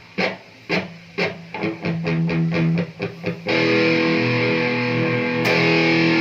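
Guitar played through a Marshall speaker over an A8 wireless guitar transmitter: a few separate plucked notes and short strums, then about halfway a chord strummed and left ringing, struck again near the end. The clean, steady signal shows the wireless link is working.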